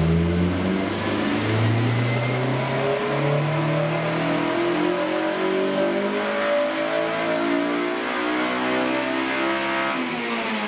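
2008 Honda Civic Si's 2.0-litre i-VTEC four-cylinder on a wide-open-throttle dyno pull, revving steadily up from about 2,600 rpm to its 8,000 rpm limit. About ten seconds in, the throttle is released and the revs fall away.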